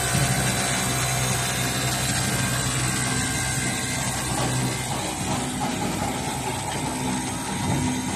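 Automatic hemming machine running, its Pegasus W500PC industrial sewing head stitching fabric with a steady mechanical whir. A low hum under it drops away about halfway through.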